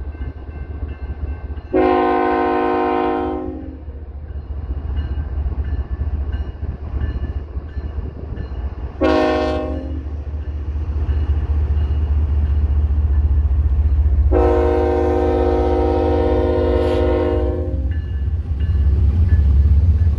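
Diesel freight locomotive's air horn sounding three blasts: a long one, a short one, then a longer one, each a chord of several notes. Under the horn, the locomotive's engine rumbles steadily and grows louder near the end as the train comes closer.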